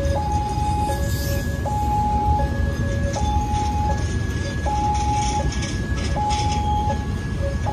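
Railway level crossing alarm sounding its two-tone electronic warning, a higher and a lower tone alternating over and over, each held for under a second. Beneath it is the low rumble and rattle of passenger coaches rolling past on the track.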